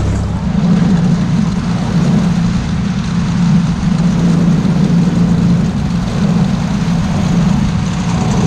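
Tohatsu 15 hp outboard motor running under way on a small inflatable boat. Its note steps up shortly after the start, then holds steady.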